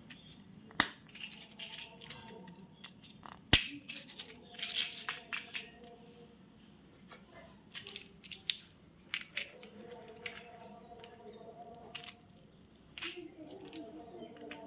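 Plastic candy and chocolate wrappers being handled and opened: crinkling and rustling in short bursts, with two sharp clicks near the start and scattered smaller clicks and taps.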